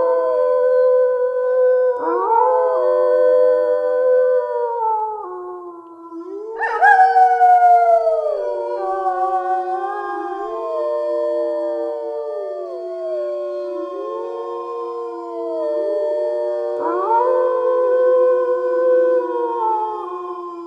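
Wolf pack howling in chorus: several long howls overlap, each swooping up to a held note and then sliding down, the loudest one rising in about a third of the way through.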